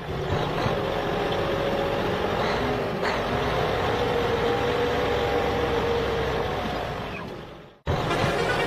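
A vehicle engine runs steadily with a faint wavering whine. It fades away about seven seconds in, breaks off, then starts up again just before the end.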